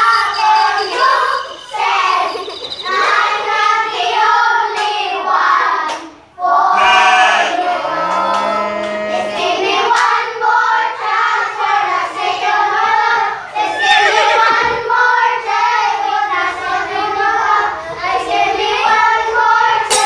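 A group of children singing together, with a brief break about six seconds in.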